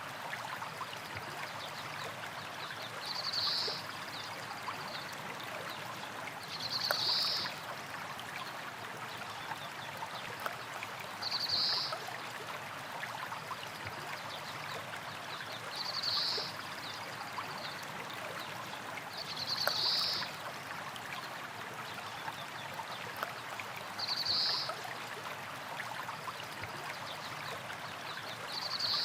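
Small stream of water running over rocks, a steady trickling rush. A short high-pitched chirp, louder than the water, recurs about every four seconds.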